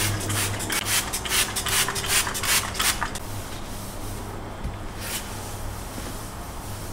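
A cloth scrubbing a stone kitchen countertop in quick strokes, about five a second, stopping after about three seconds, with one more stroke near five seconds. A low steady hum runs underneath.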